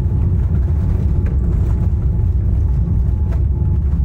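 Steady low rumble of a moving vehicle heard from inside its cabin, with a couple of faint clicks.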